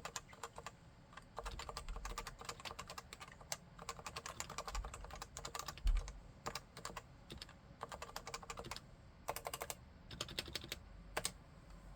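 Typing on a Leopold FC980C keyboard with 45 g Topre electrostatic capacitive switches: fast runs of keystrokes broken by short pauses. There is one heavier thud about six seconds in, and a few separate strokes near the end.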